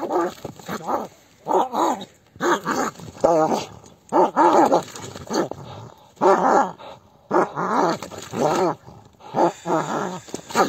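Dogs fighting: a dog's repeated wavering cries, in about ten bursts each under a second long with brief pauses between.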